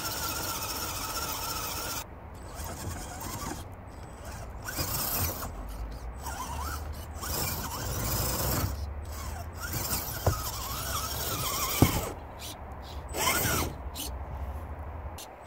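Axial SCX10 RC crawler's electric motor and geared drivetrain whining as it crawls over logs, the pitch rising and falling with the throttle, with two sharp knocks of the truck against the wood near the end.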